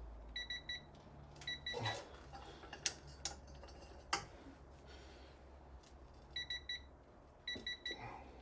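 Electronic torque wrench beeping in short groups of quick, high beeps as the axle nut is pulled toward its torque setting, with a few sharp clicks in between.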